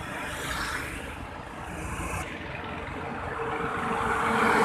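Heavy truck approaching, its engine hum and tyre noise growing steadily louder over the last second or two.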